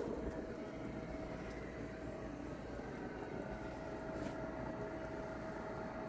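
Steady outdoor storm ambience: a low rumble with a faint steady hum held throughout, with no distinct events.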